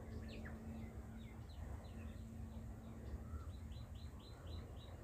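Small birds chirping with short downward-sliding calls, ending in a quick series of about six repeated notes in the last second and a half. Beneath them is a steady low hum and a low rumble.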